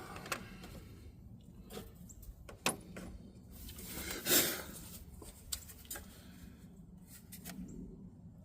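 Tools and parts being handled and moved aside in an engine bay: scattered light knocks and clicks, with one louder brief sliding noise about four seconds in.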